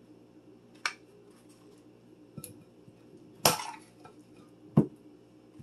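A few light clinks and knocks of kitchen utensils and dishes on a countertop: a small tap about a second in, a short clattering rattle about three and a half seconds in, and a sharp knock near the end.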